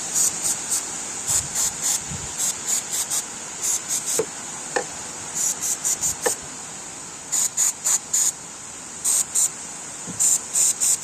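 Insects chirping: a steady high-pitched buzz with short high chirps coming in quick groups of two to four, again and again.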